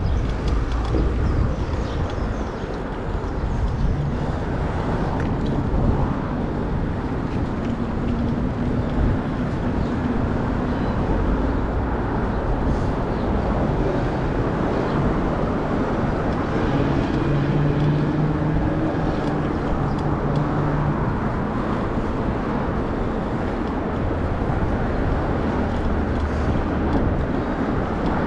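Steady rush of road traffic heard from a moving bicycle, with a vehicle's engine hum standing out for a few seconds past the middle.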